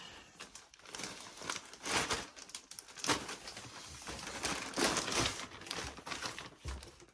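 Irregular rustling and crinkling noises in several louder bursts, with no speech.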